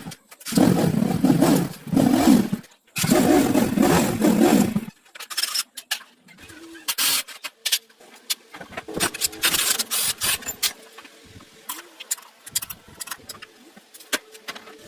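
A motorcycle engine run in two short bursts of about two seconds each, followed by scattered clicks and taps.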